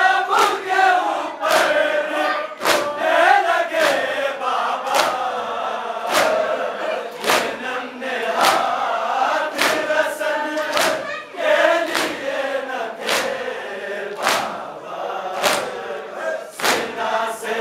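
Crowd of men chanting a Muharram nauha in unison while beating their chests (matam), the open-hand slaps on the chest landing in a steady beat a little under two a second.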